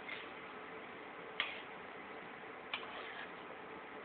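Hot oil crackling in a metal kadai of fried mashed pumpkin: a few sharp pops, roughly one a second or so, over a faint hiss. The oil has separated out at the sides, the sign that the mash is fully fried.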